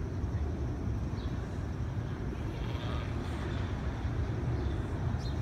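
Steady low rumble of outdoor background noise, like distant city traffic.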